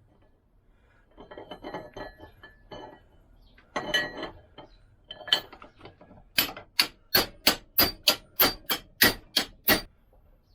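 Hammer tapping a bearing liner into a Lambretta gearbox end plate. First come metal clinks and rattles of parts being handled, then, from about six seconds in, a fast run of about fifteen sharp taps, roughly four a second. The liner is a tight fit that is resisting going in.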